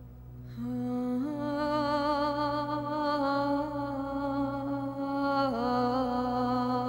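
Background score: a wordless humming or chanting voice holds long, slightly wavering notes over a steady low drone. It swells in about half a second in, steps up in pitch a moment later and drops back down near the end.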